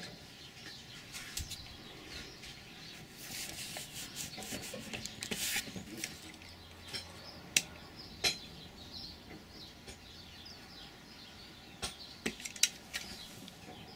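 Small blade scraping and slitting along the rubber jacket of an electrical cord, with a few sharp clicks and a cluster of three near the end.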